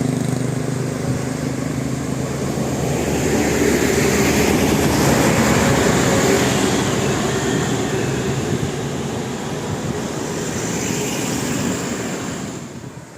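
Heavy road vehicle going past: engine and road noise swelling to a peak about five seconds in, then fading away.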